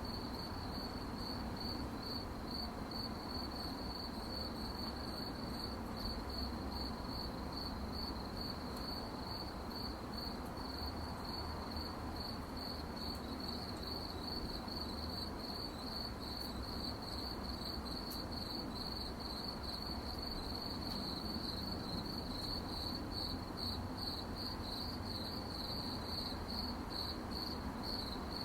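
Crickets chirping in a steady, even rhythm of high pulses, over a low background hiss.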